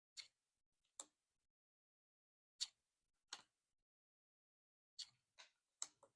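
Pokémon trading cards handled by hand: eight faint, short, crisp slides and flicks, spaced irregularly, with a quick run of four near the end.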